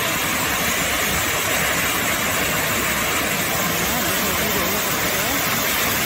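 Small waterfall pouring over rock ledges into a pool: a loud, steady rush of falling and splashing water.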